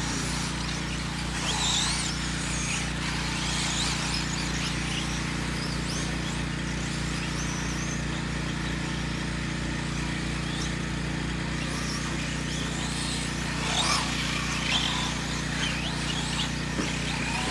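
Electric RC short-course trucks racing on a dirt track, their motors giving a faint whine that rises and falls as they pass, a little louder about two seconds in and again near the end, over a steady low hum.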